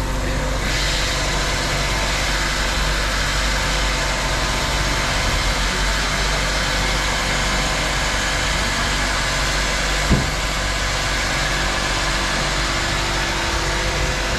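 Filling-station fuel dispenser pumping fuel into a car's tank: a steady motor hum and the rush of fuel through the nozzle, with a single knock about ten seconds in.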